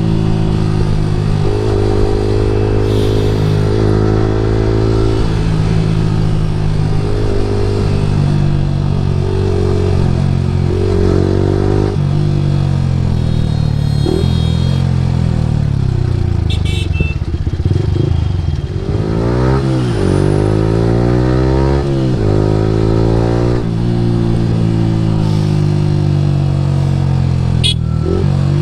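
Yamaha R15 V3's single-cylinder engine through an Akrapovic full-system exhaust, ridden hard: the pitch climbs and drops back again and again as it runs up through the revs and gears. About two-thirds of the way through, the engine note falls away, then rises sharply twice.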